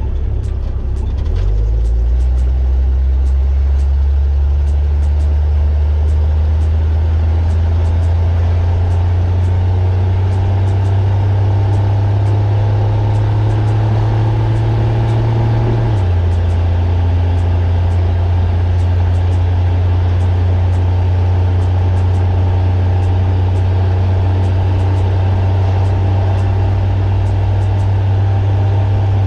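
1941 Chevrolet truck's engine pulling under way, its low drone rising slowly in pitch as the truck gains speed. About halfway through, the pitch drops suddenly at a gear change, and the engine then runs steadily at cruise.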